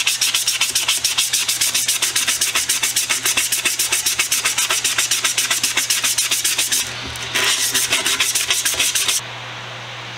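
150-grit sandpaper rubbed by hand back and forth over a galvanized steel can, fast rhythmic scraping strokes knocking down leftover paint spots after paint stripping. The strokes pause briefly a little before seven seconds in and stop about nine seconds in, leaving a steady low hum.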